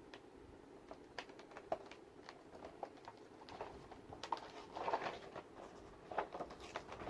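Hand-opening a toy-car blister pack: faint, scattered clicks and crinkles of plastic and cardboard being pulled apart, growing busier about halfway through.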